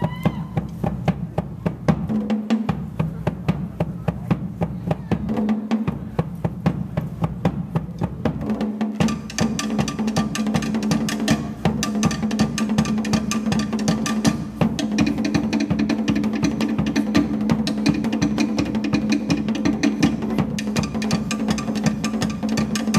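Pacific Island drum ensemble playing fast, dense rolls of rapid strikes. About nine seconds in, a steady pitched sound joins the drumming and holds to the end.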